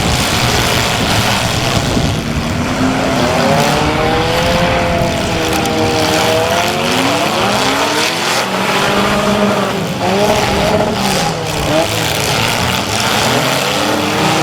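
Several compact demolition-derby cars' engines revving hard at once, their pitches rising and falling over one another as the cars accelerate and back up around the arena.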